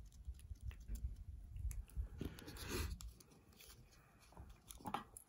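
Quiet handling noises on a workbench: scattered light clicks and knocks, with a longer rustling scrape about two to three seconds in, as tools and parts are put down and picked up.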